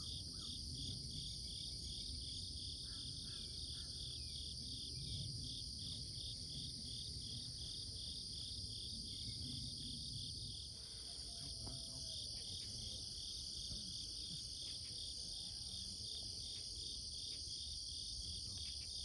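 Insects, crickets among them, chirping steadily in the marsh: a continuous high trill with an even pulsing chirp about three times a second. A few faint bird calls come through over a low background rumble.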